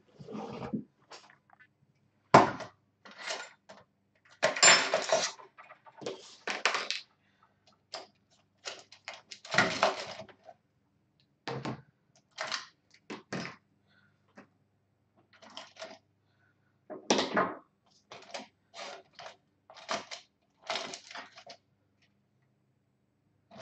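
Irregular clattering: a string of short sharp knocks and clicks mixed with half-second rustling scrapes, loudest about two seconds in, around five and ten seconds, and near seventeen seconds.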